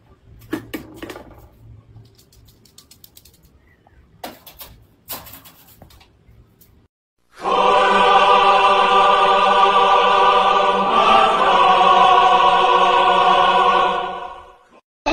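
A voice holds one long, steady note for about six seconds, with a single shift in pitch midway, after a few seconds of faint clicks and taps.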